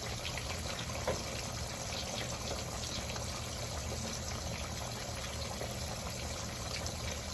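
Catfish pieces frying in hot oil: a steady sizzle with small crackles and pops, one slightly louder pop about a second in.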